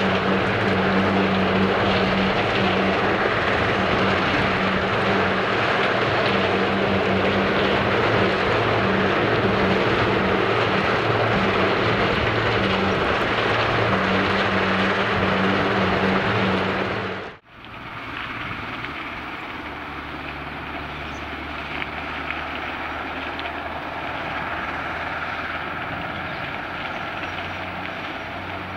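Heavy tipper truck's diesel engine pulling hard and steadily, loaded, up a steep haul road. About two-thirds of the way through it cuts off suddenly, and a quieter, lower engine sound of a truck and wheel loader at the stockpiles follows.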